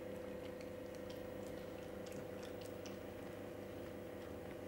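Faint irregular lapping and licking of a small dog at a stainless-steel bowl, over a steady low electrical hum.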